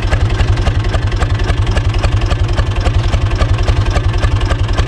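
Diesel engine of a UTB U445 DT tractor idling steadily, with a rapid, even firing pulse.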